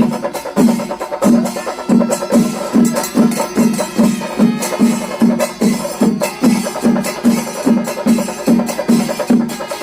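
Chenda melam, the Kerala temple drum ensemble of chenda drums and cymbals, playing an even pulse of about three beats a second under a steady clatter of sticks and cymbals.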